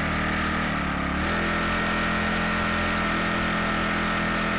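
Honda 35cc four-stroke engine on a kayak drive mount running at idle, not drastically loud, its speed stepping up slightly about a second in.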